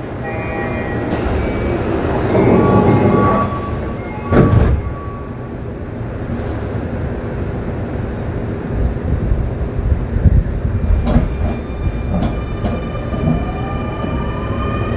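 Keio 9000 series electric train heard from on board: rolling rumble of wheels on rail, with a loud thump about four seconds in. Near the end the traction motors' whine rises in several pitches together as the train accelerates.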